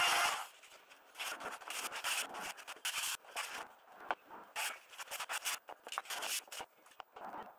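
A small trim router runs and cuts off a moment in. It is followed by irregular scraping strokes of sandpaper rubbed by hand along plywood edges.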